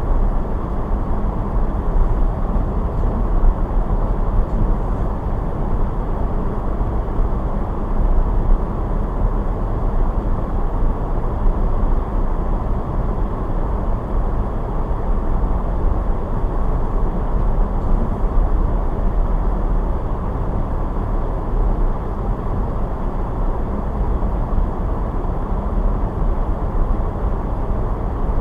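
Steady low rumble of a car driving: engine and tyre noise on the road, with no sudden changes.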